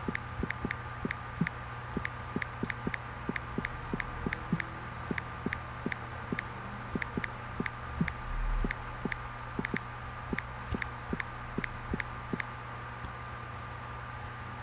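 Steady machine hum with a fast, slightly irregular clicking, about three clicks a second, that stops near the end, and a brief low bump about eight seconds in.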